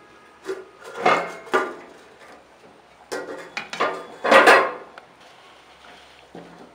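Kitchen utensils clattering: a spoon and metal vessels knocking and clinking in a handful of separate strokes, in two clusters with a short lull between, the loudest near the end of the second cluster.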